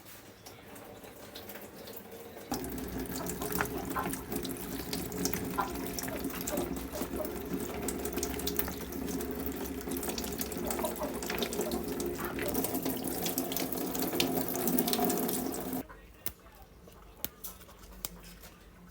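Water running from a tap, turned on about two and a half seconds in and shut off abruptly near the end, with small knocks and clatter of things being handled in the water.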